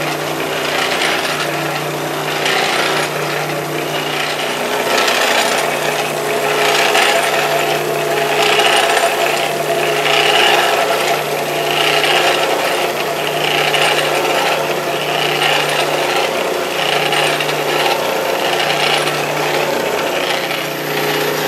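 Drill press running with a homemade oscillating spindle mechanism driven by polyurethane round belting, rattling steadily. The sound swells in a regular cycle about every 1.7 seconds, in step with the oscillation.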